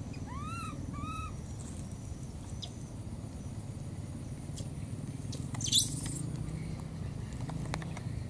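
A baby monkey gives two short cries, each rising and falling in pitch, about half a second and a second in. Near six seconds comes a brief sharp rustle, the loudest sound here.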